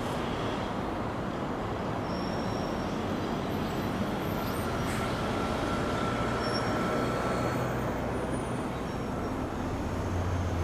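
Steady traffic noise, with a faint thin high squeal from about four seconds in that lasts a few seconds.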